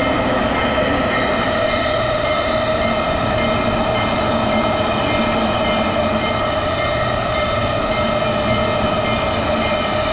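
Japanese railroad crossing alarm ringing in a steady rhythm, a couple of rings a second, over the running rumble of a train.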